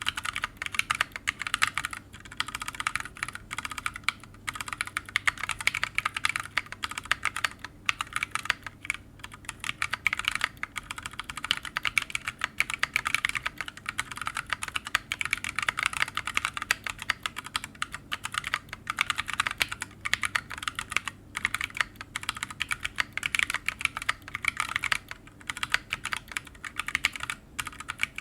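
Continuous fast typing on a mechanical keyboard with Shogoki tactile switches (65 g springs, stock), PBT OEM-profile keycaps on an FR4 plate in an open, undampened case: a dense run of keystroke clicks, broken by brief pauses.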